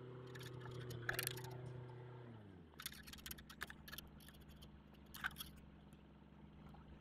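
Tractor engine running steadily as the tractor pulls away. After a cut about two and a half seconds in, a fainter, lower engine hum from a distant tractor, with a few scattered sharp clicks.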